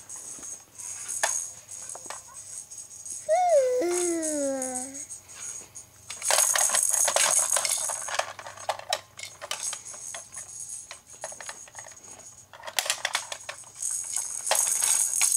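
A baby's rattle toy shaken in bursts, a dense jingling rattle from about six to nine seconds in and again from about twelve and a half seconds on. About three seconds in, a 4½-month-old baby gives one short vocalization that wavers up and down in pitch.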